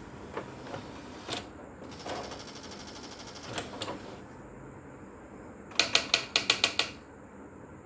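Electric typewriter mechanism working: scattered clicks, a brief rapid rattle about two seconds in, then a quick run of about eight loud type strikes near the end.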